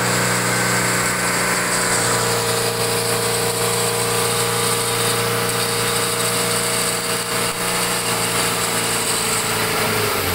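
Electric winch on the front bumper of an off-road 4x4 running under load, a steady motor whine as it hauls the vehicle in on its cable, winding down in pitch at the very end as the motor stops.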